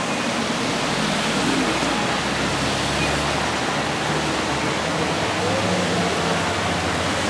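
Steady rush of water pouring down an artificial waterfall at a mini golf course, with faint voices underneath.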